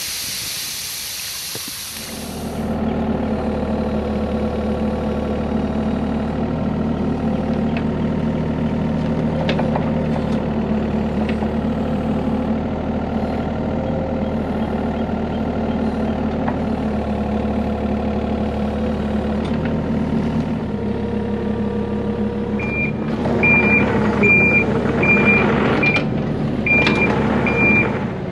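A short hissing rush from a 3-inch test cap being opened to drain a new drain line. Then a mini excavator's engine running steadily, working harder from about 23 s with its travel alarm beeping about seven times.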